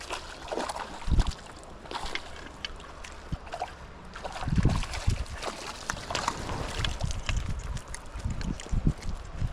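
Creek water running and splashing, with short sharp splashes and low rumbling thumps on the microphone at times.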